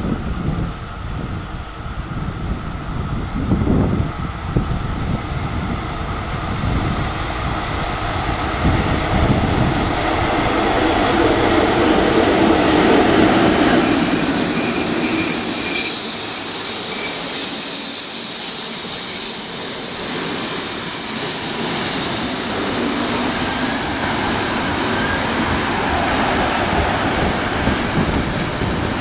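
MÁV class V43 (431) electric locomotive and its passenger carriages pulling into a station stop, with a steady high-pitched wheel squeal. The train grows louder over the first half as the locomotive draws close and passes, then the carriages roll by.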